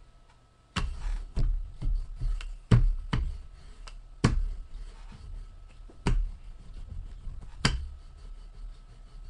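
Irregular knocks and taps, about nine in all: quick ones close together in the first three seconds, then a few spaced out. A faint steady high hum runs underneath.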